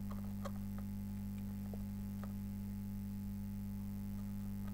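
Steady low electrical hum, with a few faint clicks scattered through it.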